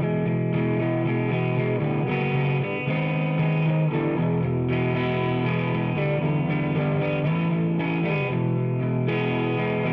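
Background music: distorted electric guitar playing held chords over a steady bed.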